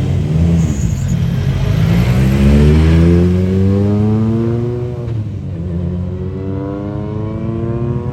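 Rally car engine accelerating hard: its pitch climbs for a few seconds, drops sharply at an upshift about five seconds in, then climbs again.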